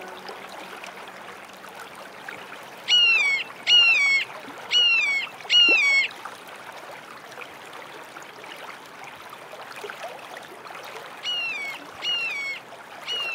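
A bird calling four times, about one falling note a second, then twice more near the end, over a steady hiss of running water.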